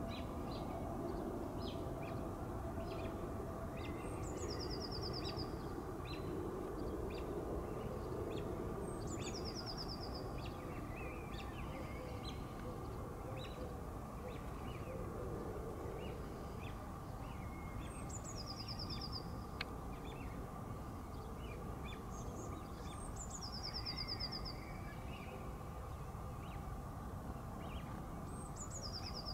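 A small songbird repeating a short song, a high note dropping into a fast, even trill, about every five seconds, with scattered short chirps. A steady low background rush runs underneath.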